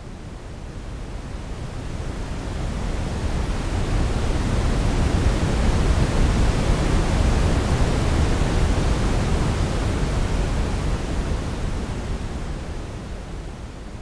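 Simulated ocean-wave sound made from shaped noise: one slow swell that builds to a peak about halfway through and then ebbs away.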